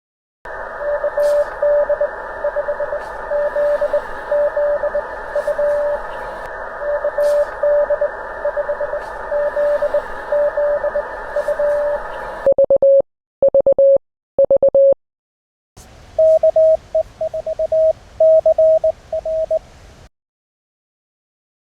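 Morse code (CW) callsigns heard through an amateur radio receiver: one station's keyed beeping tone over band hiss, then three long, louder tones, then another station's Morse a little higher in pitch over fainter hiss.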